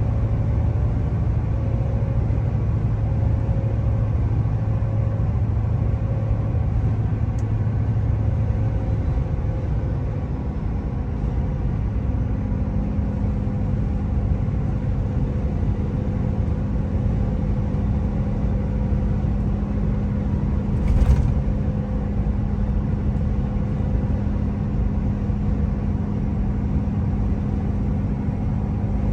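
Inside the cab of a Ford F250 with a 6.7 Powerstroke V8 turbo-diesel cruising at 70 mph, with a 4-inch exhaust and no muffler or resonator: a steady drive rumble of exhaust, wind noise and all-terrain tyre hum. A steady hum steps up in pitch about twelve seconds in, and there is a single short thump a little past two-thirds of the way through.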